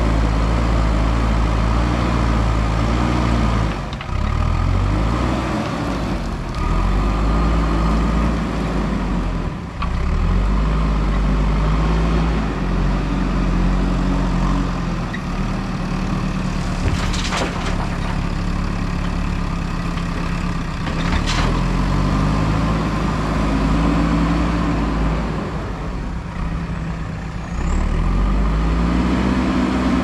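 Backhoe loader's diesel engine working hard, its revs rising and falling over and over as it pushes and lifts soil. Two sharp metallic clanks come a little past the middle, about four seconds apart.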